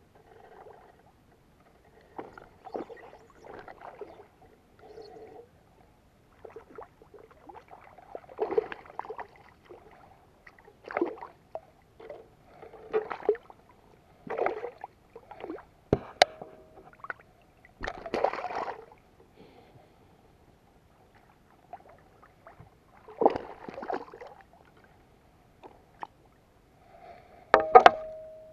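Irregular splashing and sloshing of water as a hooked black bass thrashes at the surface, in short bursts every second or two, with the loudest, sharpest splashes near the end as the fish is grabbed by hand.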